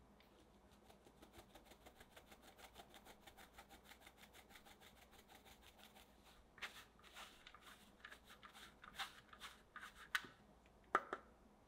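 A fine-mesh sieve shaken over a glass bowl, sifting flour and cocoa powder: a fast, even run of faint ticks, then louder irregular taps from about six seconds in, and one sharp knock near the end.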